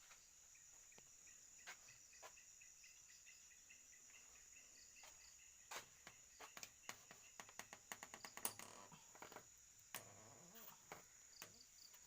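Faint, steady high chirring of crickets, with a scatter of small clicks and taps in the second half.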